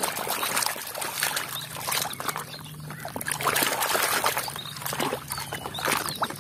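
Thick muddy water sloshing and splashing in a plastic tub as a toy cement mixer truck is swished and rubbed clean by hand, with irregular splashes and trickling.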